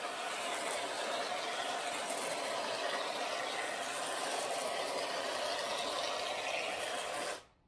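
Aerosol can of coconut whipped topping spraying in one long, steady hiss that cuts off suddenly near the end.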